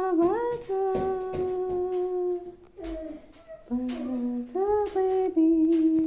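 A high voice humming or singing long held notes, several phrases that slide up into each note and then hold steady, with a few short sharp clicks in between.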